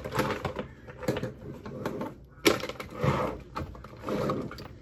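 Irregular clicks and knocks of small objects being handled and set down, with short bursts of rustling, about three and four seconds in.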